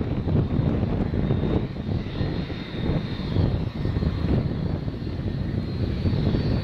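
Boeing 757's twin jet engines running at high power as it starts down the runway: a steady low rumble with a thin high whine above it.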